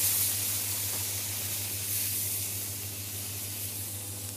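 Hot pan of chicken and curry spice paste hissing and sizzling as water is poured in, the hiss loudest at first and slowly dying away as the pan cools.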